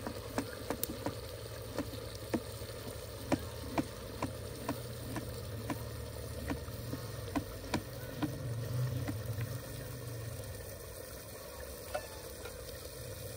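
Knife chopping tinda (round gourd) on a cutting board in sharp taps about twice a second, which thin out after about eight seconds, over a steady low rumble.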